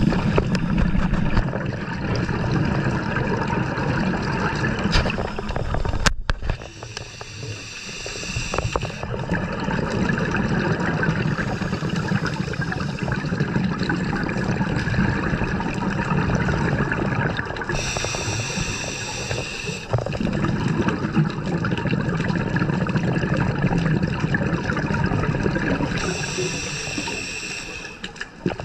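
Scuba regulator breathing heard underwater: long stretches of exhaled bubbles gurgling, broken by a short hissing inhalation roughly every nine seconds.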